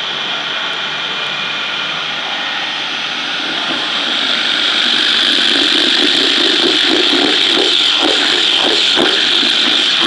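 Electric chili paste grinding machine running steadily with a high whine. It grows louder about four seconds in, with an uneven grinding rasp near the end.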